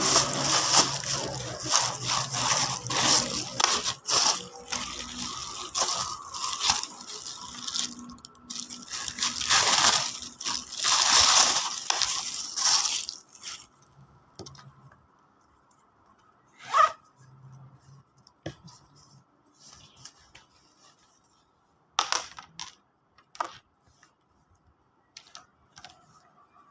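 Plastic packaging crinkling, rustling and tearing as it is handled and opened, busy for about thirteen seconds. After that it is mostly quiet, with a few scattered clicks and taps.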